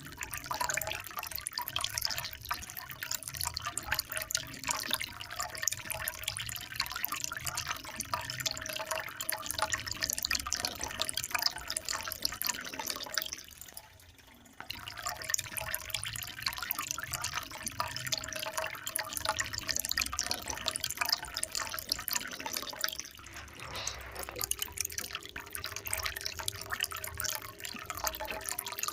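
Water trickling and splashing steadily in a dense patter of small drops, fading almost to nothing for about a second near the middle before coming back. A faint steady hum sits underneath near the end.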